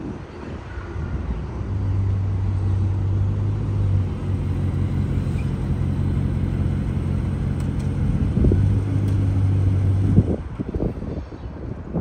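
Car engine running with a steady low hum that shifts slightly in pitch and stops about ten seconds in, followed by wind buffeting the microphone.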